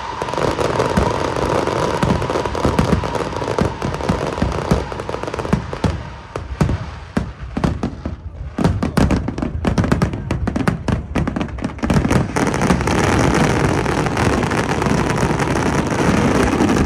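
Aerial fireworks going off in quick succession, with many sharp bangs and crackles. From about twelve seconds in they turn into a dense, continuous barrage of crackling.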